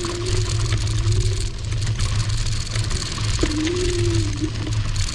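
AOVO electric scooter riding over a rough gravel path: the electric motor's steady whine wavers a little in pitch with speed, over a low rumble of the tyres on the surface. The whine drops out briefly about three and a half seconds in and comes back slightly lower.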